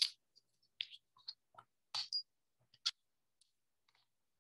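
A handful of short, light clicks and taps at irregular moments, the sharpest about two and three seconds in.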